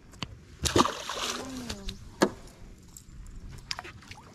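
A splash in the water about a second in as a largemouth bass is let go back over the side, followed a second later by a single sharp knock.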